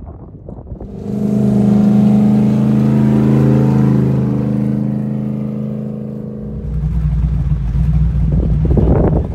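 Motor vehicle engine running. A steady droning engine note comes in about a second in and slowly fades, then a deeper, louder engine rumble takes over about two-thirds of the way through.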